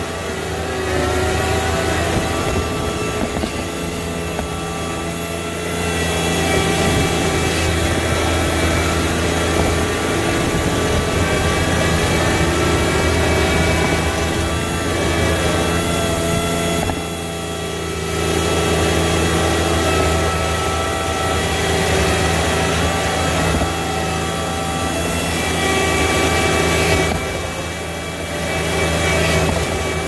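John Deere 1025R compact tractor's three-cylinder diesel engine running steadily while the front loader bucket pushes snow. Its pitch slides up and down in places, and its level dips briefly twice.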